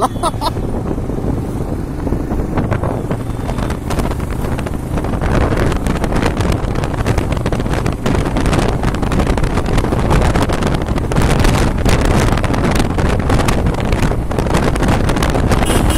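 Wind buffeting the microphone on a moving Royal Enfield Himalayan, over the steady running of its single-cylinder engine and road noise.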